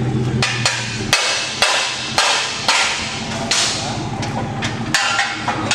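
A hammer striking, about a dozen sharp blows at uneven intervals, some ringing on briefly.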